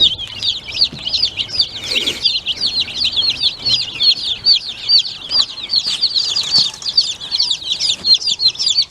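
A brooder full of young chicks peeping nonstop, many short, high peeps overlapping. A brief rustling burst sounds about two seconds in.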